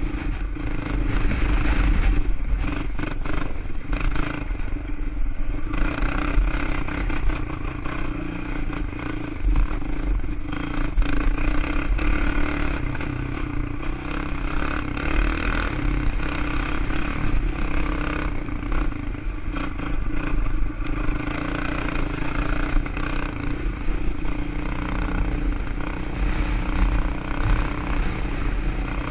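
Quad (ATV) engine running steadily while riding off-road, with a constant hum over a heavy low rumble.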